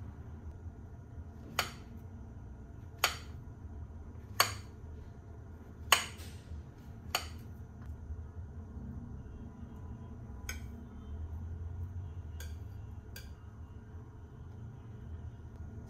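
A kitchen knife clinking sharply against a ceramic plate five times, about a second and a half apart, while a banana is sliced onto toast, then a few fainter taps, over a low steady hum.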